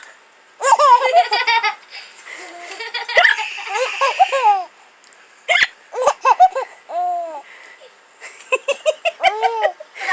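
Baby laughing in about four bursts of giggles, with sharp hiccups between them; the baby has the hiccups and the laughter is set off by her hiccups being copied.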